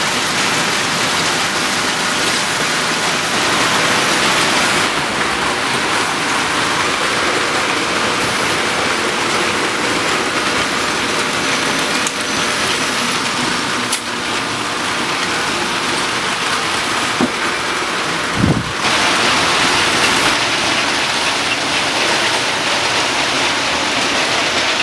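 Steady hissing din of electric toy trains running on metal track. A brief low thump comes about three-quarters of the way through.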